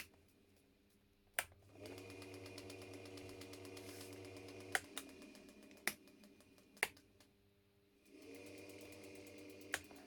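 Rocker switches on a homemade control box click, and a washing machine motor starts with a short rising hum and runs steadily. About three seconds later a click cuts it off and it coasts down. A few more switch clicks follow, and near the end the motor starts humming again.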